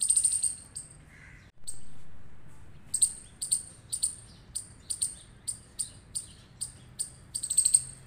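Small squirrel's high, sharp chirping call. It opens with a quick run of chirps, then after a pause gives single chirps about twice a second that speed up into a rapid trill near the end.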